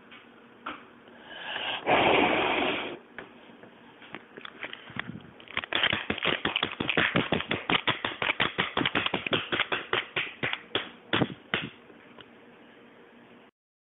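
A strong breath blows out birthday-cake candles about two seconds in. Then several seconds of clapping follow, rapid and uneven, dying away with a last few claps near the end.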